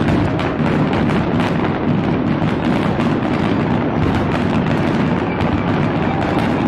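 A dense barrage of aerial fireworks going off, with many overlapping bangs and crackles and no gaps between them.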